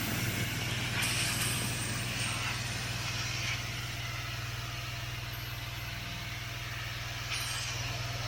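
Pressure washer's engine running steadily under load, with the hiss of the high-pressure water jet on the driveway paving.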